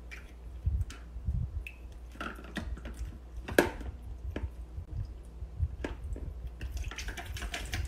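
A cat pawing at the water in a Catit Flower pet drinking fountain: scattered small splashes and drips at irregular intervals, over a low steady hum.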